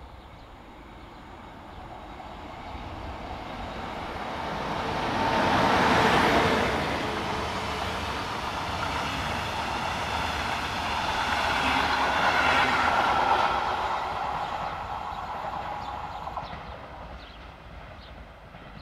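A train passing by. It grows louder to a peak about six seconds in, swells again around twelve seconds, then fades away near the end.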